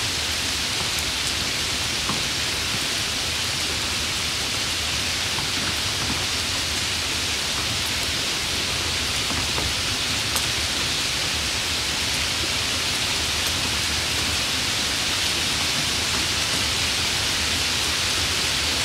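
Heavy rain falling on standing floodwater: a steady, even hiss with the odd single drop tick.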